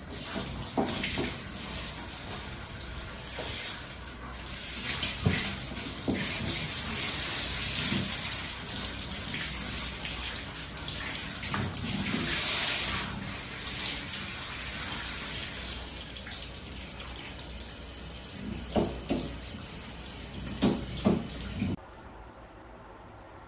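Handheld shower head spraying water onto a Shiba Inu's coat in a shower stall: a continuous hiss of spray, with a few short louder splashes and knocks, mostly in the second half. Near the end it cuts off abruptly to a much quieter background.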